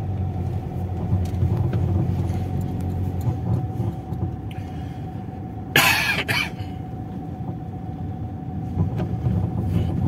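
Car cabin noise while driving: a steady low engine and road rumble with a faint steady whine. About six seconds in comes a short, loud burst of noise lasting roughly half a second.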